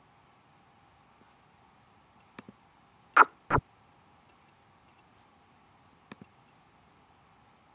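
Chess program's move sound: two sharp clicks about a third of a second apart as a capturing move is played on the board. A few fainter mouse clicks come before and after.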